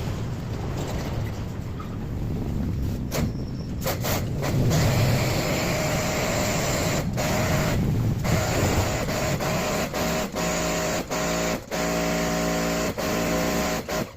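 Water spraying hard, as in washing down an air conditioner, with a steady motor hum joining about ten seconds in. The sound cuts out briefly several times.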